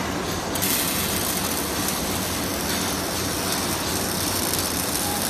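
Robotic arc-welding torch laying a weld, the arc giving a steady crackling hiss that turns brighter and harsher about half a second in.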